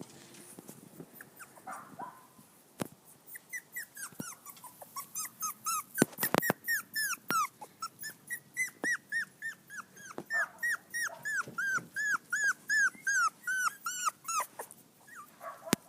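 Young poodle–shih tzu mix puppy crying: a long run of short, high-pitched whimpering cries, about three a second, starting a few seconds in and stopping near the end. A few sharp knocks come in among the cries.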